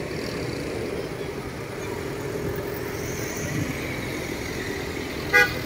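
A car driving slowly past close by, its engine and tyres making a steady rumble. Near the end comes one short, loud, high-pitched tone.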